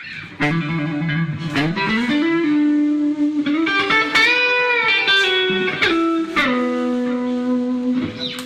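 Guitar played as a melodic line of single notes, with pitch slides and bends around the middle, ending on a long held note that fades out near the end.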